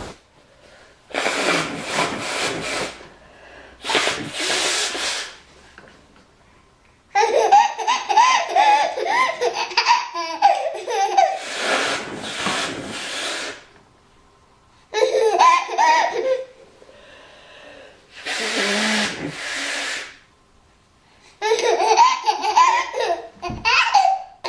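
A woman blowing her nose hard, about four times, each blast lasting a second or two. In the gaps a baby laughs in long belly-laugh bursts.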